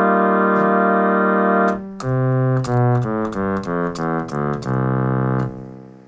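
ARP Solina String Ensemble string-synth tone: a held chord that stops a little under two seconds in, then a run of single notes lower on the keyboard, fading out near the end. The notes sound cleanly, with none dropping out, now that the M087 master oscillator chip has been replaced.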